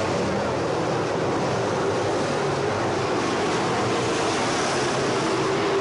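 A field of dirt-track late model race cars with crate V8 engines running laps together: a steady, blended engine drone with no break.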